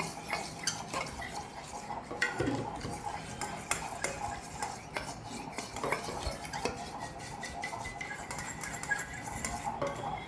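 A fork stirring baby-bird feeding formula in a bowl, with repeated irregular clinks and scrapes of the fork against the bowl as the mixture is worked.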